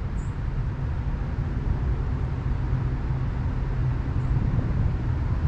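Steady low rumble with a faint hiss above it, without change throughout.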